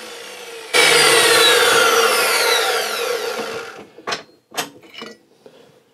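Chop saw running, then biting into the diesel heater's finned aluminium heat exchanger about a second in: a loud metal-cutting screech for about three seconds, its pitch sliding down as the blade slows, then fading out. A few short knocks follow.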